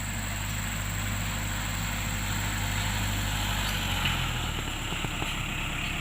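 Engine of a fertilizer-spreading machine running steadily; its low note shifts about four seconds in.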